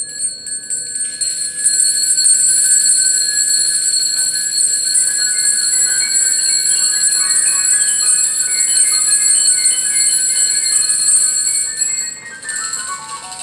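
Bells shaken continuously, a steady high ringing jingle, with scattered short pitched percussion notes sounding over it. The ringing stops about twelve seconds in, and a rising run of mallet-percussion notes begins.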